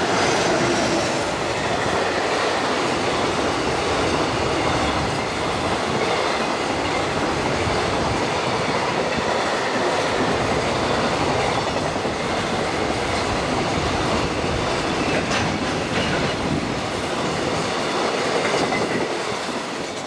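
JR Freight EF210 electric locomotive and its long train of container wagons passing close: a steady, loud rumble and rattle of wheels on rail, with some clicks over the rail joints. It falls away near the end as the last wagon goes by.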